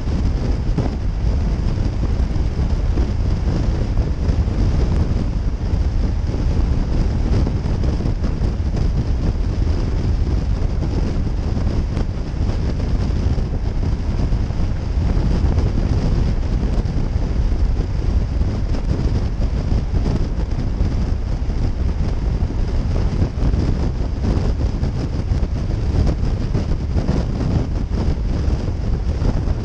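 Wind rushing over the microphone of a camera mounted on a motorcycle cruising at highway speed: a steady low rumble with a constant hiss above it.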